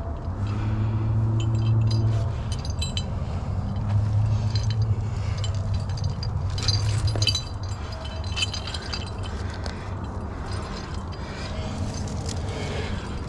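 Climbing hardware, carabiners and quickdraws on a climber's harness, jingling and clinking again and again as the climber moves on the rock, over a low hum that comes and goes in the first half.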